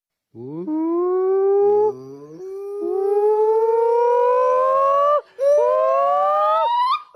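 An animal howling: four or so long drawn-out calls, each rising steadily in pitch and then breaking off sharply.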